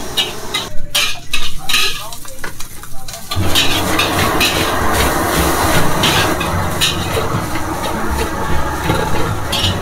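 Metal spatula scraping and clanking against a wok while egg and then rice are stir-fried, with frying sizzle throughout. The fried rice for nasi goreng is at the stage where egg is scrambled and rice is tossed in.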